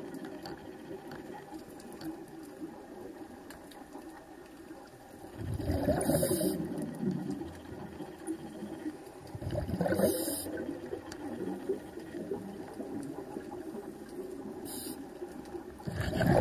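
Scuba diver breathing through a regulator underwater: exhaled air bubbles burble out in loud bursts every four to six seconds, each with a short hiss, over a steady low wash of water.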